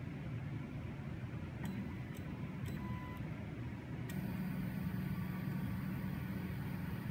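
A quiet hum with a few light clicks, then about four seconds in the Anycubic Kossel delta 3D printer's stepper motors start driving the carriages, a steady low hum, as the machine leaves heating and begins its print.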